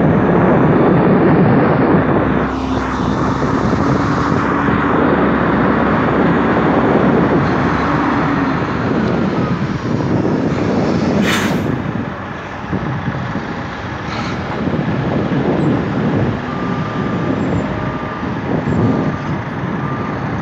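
Diesel engine of a Ford L9000 dump truck running loud as the truck drives off after loading, with one short sharp sound about halfway through.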